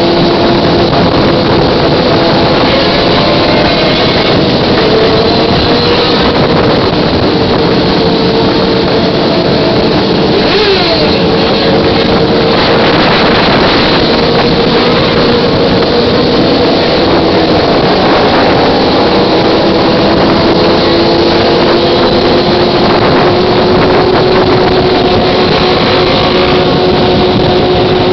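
Engines of a large pack of sport motorcycles cruising together at highway speed: a loud, steady drone of many engines at once. Around ten seconds in, one engine's note sweeps quickly in pitch.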